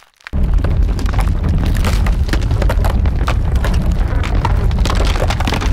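Logo-intro sound effect: a sudden deep rumble starts about a third of a second in and holds steady, with crackling like crumbling stone over it.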